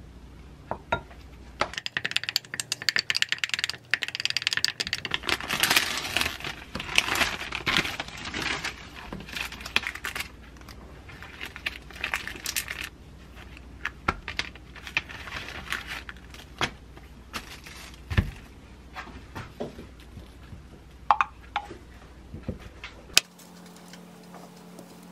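A wooden spoon clinking and scraping against a small glass beaker as a sauce is stirred, a dense run of small clicks and crackles. It thins out after about thirteen seconds into scattered taps and rustles of hands handling a thin plastic wrapper.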